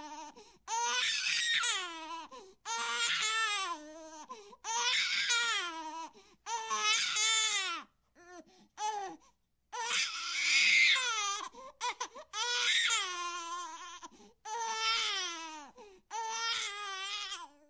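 Baby-crying sound effect: an infant wailing in about nine long cries of one to two seconds each, broken by short catches of breath. The pitch of each cry wavers up and down.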